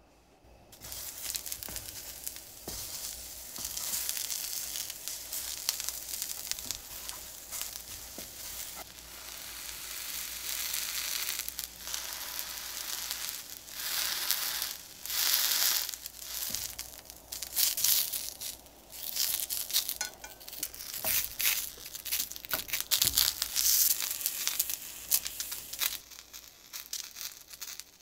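Chinese eggplant planks frying in hot oil in a stainless steel pan: a dense sizzle that starts about a second in and swells louder at times, with small clicks, before dying down briefly near the end.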